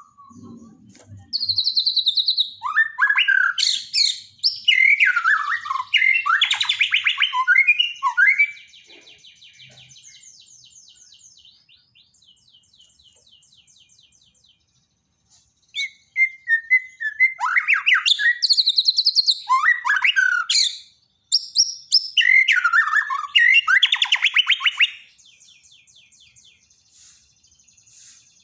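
Bornean white-rumped shama (murai batu Borneo) singing two long bouts of loud, varied song, with clear whistles, sweeping notes and rapid trills. Between and after the bouts there is a fainter, fast ticking chatter.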